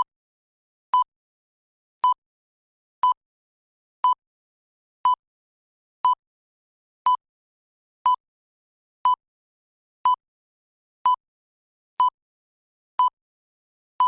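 Countdown timer sound effect: a short, sharp electronic tick-beep, one per second, evenly spaced with silence in between.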